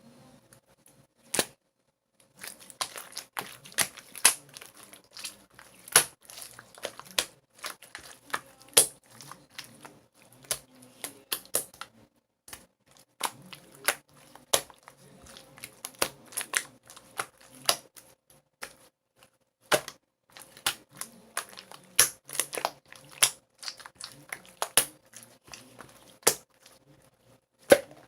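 Aloe slime being squeezed and poked by hand, making irregular sharp crackles and pops with a few short pauses. A faint steady hum runs underneath.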